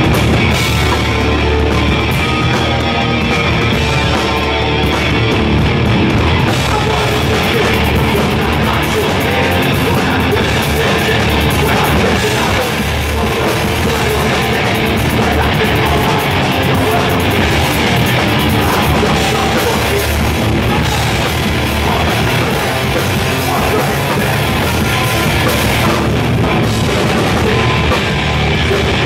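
Hardcore band playing live and loud: electric guitar and drum kit with shouted vocals.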